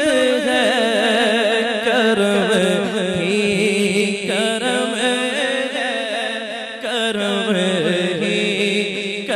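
Male naat recitation sung without instruments: one voice draws out long, wavering, ornamented notes with no clear words, over a steady low drone.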